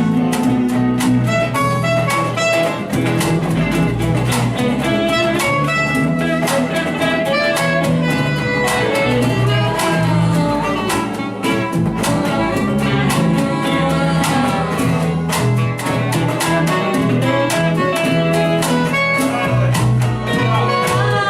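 Band music with string instruments, guitar and bass among them, playing steadily over a regular beat.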